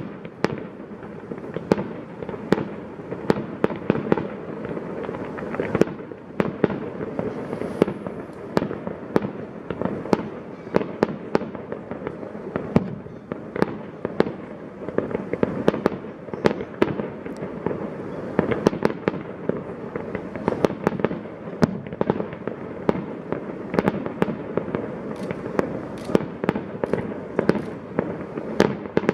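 Fireworks display: shells bursting in quick, irregular succession, many sharp bangs over a continuous rumble of echoing reports.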